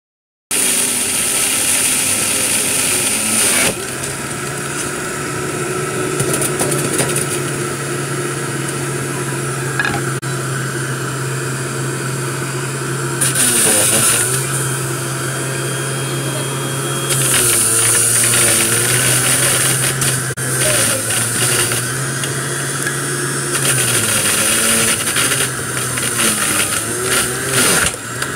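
Electric centrifugal juicer running steadily with a motor hum while it grinds apples, carrots, lemons, limes and ginger. Louder grinding spells come several times as pieces are pushed in, and the motor's pitch dips now and then under the load.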